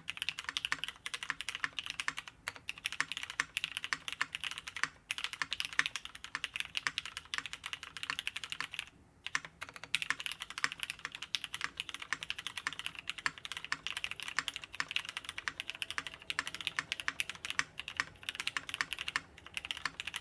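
Fast, continuous typing on a custom 60% mechanical keyboard with lubed Cherry MX Black linear switches in an aluminium plate, leafspring grommet mounted, with GMK keycaps. The typing breaks off briefly about nine seconds in.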